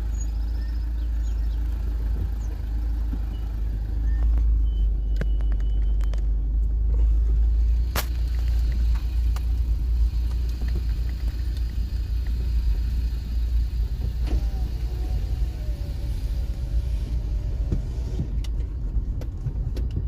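A car driving slowly, heard from inside the cabin: a steady low rumble of engine and road noise, with one sharp click about eight seconds in.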